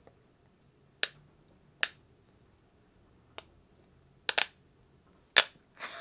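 Silicone push-pop bubbles on a squishy fidget ball popping in one at a time under a fingertip: about half a dozen short, sharp pops at irregular spacing, two of them in quick succession past the four-second mark.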